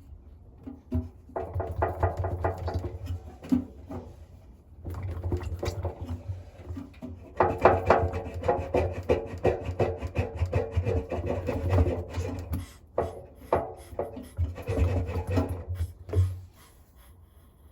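Bosch WAE24366 washing machine drum turning in bursts of a few seconds with short pauses, scraping and rattling as it goes: the sign of a broken drum spider.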